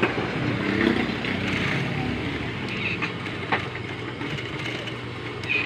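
Sewing machine running, stitching steadily, with a few sharp clicks.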